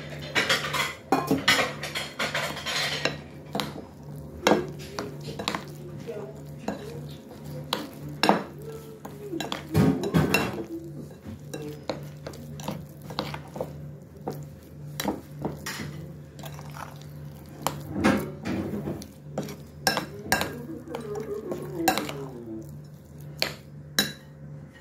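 Metal spoon stirring and scraping a thick flour batter in a bowl, with frequent irregular clinks of the spoon against the bowl's sides. A steady low hum runs underneath.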